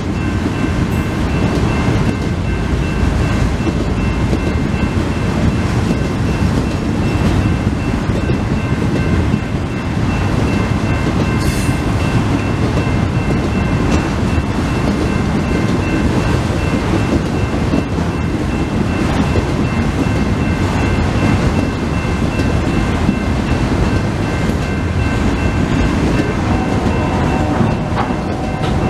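Freight cars rolling past at speed: a steady rumble of wheels on rail with faint clicks, and a grade-crossing warning bell ringing steadily over it.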